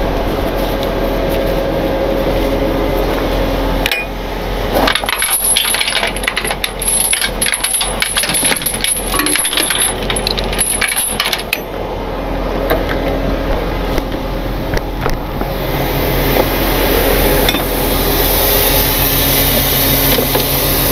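Steel tow chain rattling and clinking, metal on metal, for about seven seconds as it is unhooked and handled. Under it the tow truck's engine idles steadily and grows a little louder near the end.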